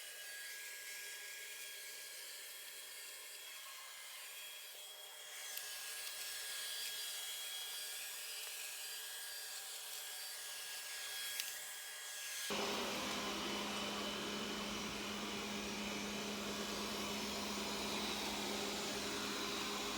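Robot vacuum cleaner running with a steady whir. A single click comes about 11 seconds in, and about 12 seconds in the sound turns suddenly louder and fuller, with a steady low hum.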